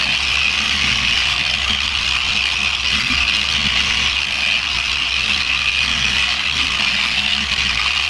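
Electric polisher with a Bauer foam buffing pad running steadily over a painted motorcycle fuel tank, heard as an even, high-pitched hiss in fast-forwarded footage.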